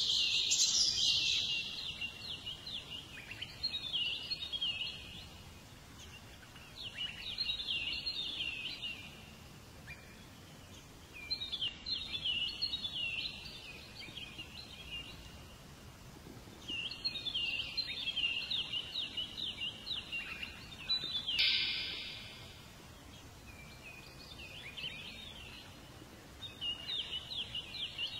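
Songbird singing: phrases of rapid high chirps, each lasting a second or two, repeated every few seconds over a faint steady hiss.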